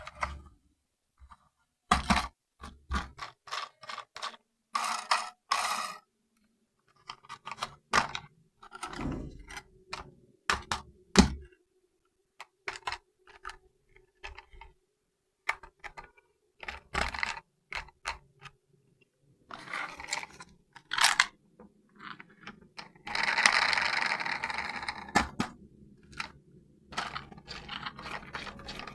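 Handling of a plastic RC toy tank: irregular clicks, knocks and scrapes, with a longer scraping rustle about two-thirds of the way through.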